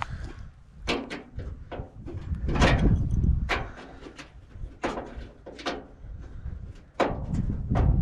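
Sharp metal clicks and knocks, a dozen or so at uneven intervals, as chrome trim is pried off its retaining clips. A low wind rumble runs on the microphone underneath.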